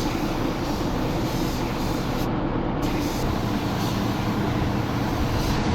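Steady mechanical rumble with hiss. The highest sounds drop out for about half a second a little over two seconds in.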